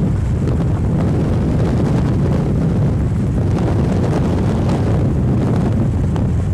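Steady rush of wind buffeting the microphone at a car's side window while driving, with the car's road noise underneath.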